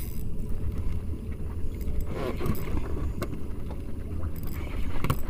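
Steady low rumble of wind on the microphone and water moving around a small boat, with a few brief clicks and knocks.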